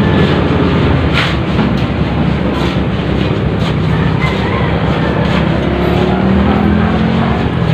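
An engine running steadily, with a few brief knocks and scrapes over it.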